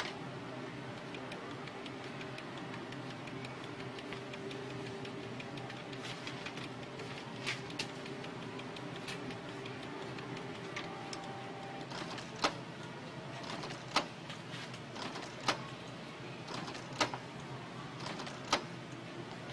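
Canon G2000 inkjet printer running: a steady motor hum with a faint whine for the first half, then sharp mechanical clicks, five of them about a second and a half apart.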